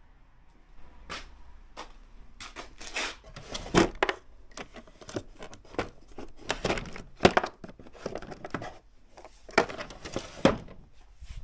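Rummaging in a wooden tool drawer: the drawer slides and tools and plastic cases clatter, giving an uneven string of short knocks and scrapes.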